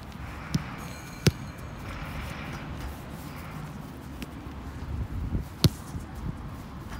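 A football being kicked on an artificial-turf pitch: a few sharp thuds of the boot striking the ball, a light one about half a second in and the loudest about a second in and again near six seconds, with footsteps between.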